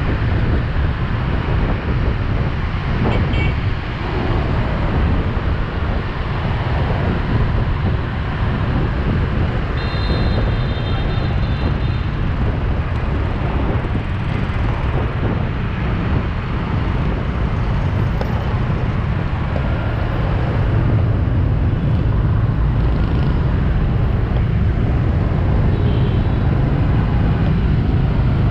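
Motorbike traffic on a city street, heard from a scooter riding in it: a steady, dense rumble of small motorbike engines and road noise, growing a little louder near the end. A short high tone, like a horn, sounds about a third of the way in.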